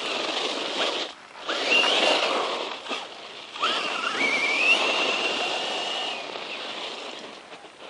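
Brushless electric motor of a 1/10-scale Circuit Thrash RC truck whining up in pitch as it accelerates, over the rush of its tyres, in three runs. In the last run the whine holds steady for about two seconds before fading away.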